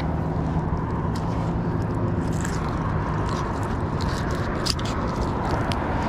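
Scattered scraping and clicking of a rusty, crumbling piece of metal stuck to a fishing magnet as it is handled, over a steady low rumble.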